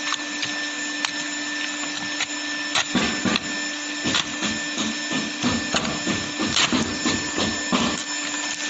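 Automatic hot air plastic welding machine running: a steady blower hiss and motor hum, with irregular sharp clicks and knocks from the drive.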